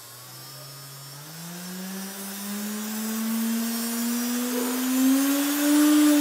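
Small 385 brushed DC motor, a strip of tape on its shaft, spinning up on a PWM speed controller: its whine rises steadily in pitch and grows louder as the speed knob is turned up.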